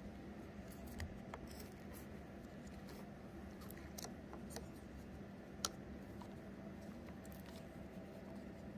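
A handful of light plastic and cardboard clicks and taps as a homemade jaws-of-life model worked by water-filled syringes is handled and tried out, the sharpest click a little past halfway, over a steady low hum.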